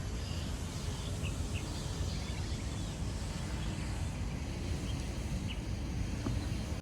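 Outdoor park ambience: a steady low rumble with a few faint, short bird chirps over it.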